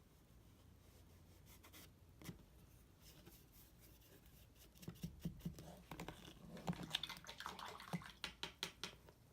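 Paintbrush dabbing and scraping on a small mixed-media painting. A single light tap comes a little over two seconds in, then from about halfway a run of quick taps and scratchy strokes.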